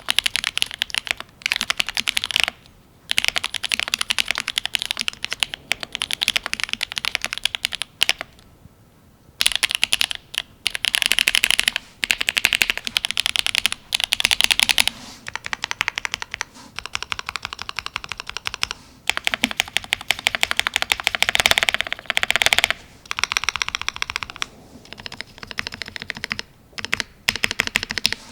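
Typing on a Cyberboard R3 mechanical keyboard with lubed Gateron Ink Black linear switches in an aluminium plate and GMK keycaps: fast runs of keystrokes broken by short pauses, the longest about eight seconds in.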